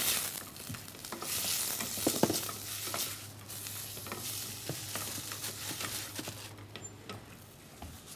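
Chopped onion sizzling in hot vegetable oil in a stainless steel saucepan while a wooden spoon stirs it, with irregular small knocks and scrapes of the spoon against the pan. The sizzle dies down about six and a half seconds in.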